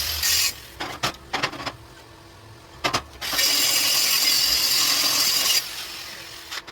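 A TIG welding arc hissing steadily, cutting off about half a second in. A few light clicks and one sharp knock follow near three seconds. The arc then strikes again and hisses for about two seconds before fading away.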